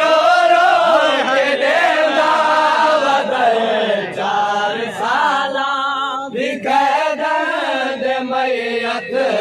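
A crowd of men chanting a Muharram noha, a mourning lament, together in unison. Their voices thin out briefly about halfway through and then come back in.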